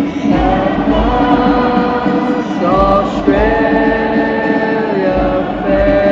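Choir singing a slow song, holding long steady notes that move slowly from pitch to pitch.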